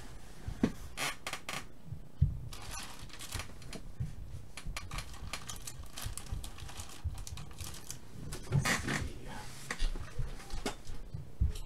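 Trading card packs being handled: scattered rustling of pack wrappers with light clicks and taps, busier about a second in and again near the end.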